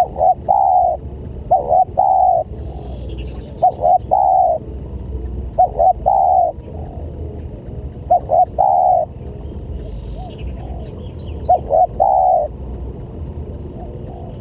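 Spotted dove (tekukur) cooing: six times, a phrase of two short coos and a longer drawn-out coo, about every two seconds, used as a lure call. Faint high chirps of small birds come in twice over a low steady background rumble.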